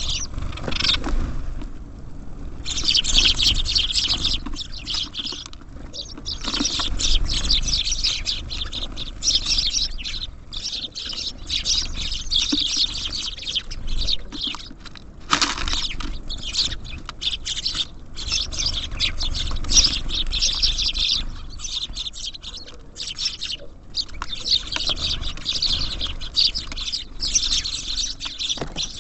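Small songbirds at a feeder chirping in long, busy stretches, with quick clicks and taps of pecking at the seed.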